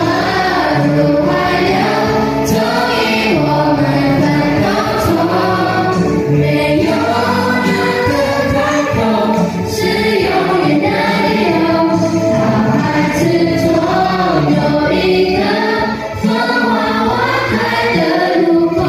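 A primary-school children's choir of boys and girls singing a song together.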